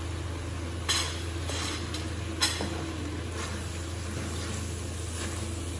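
Wooden spatula stirring frying vegetables in an aluminium wok, with two sharp knocks against the pan about one and two and a half seconds in and a few lighter scrapes, over a light sizzle and a steady low hum.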